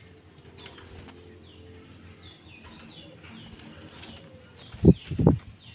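Small birds chirping in many quick, high, falling notes, with two loud low thumps close together about five seconds in.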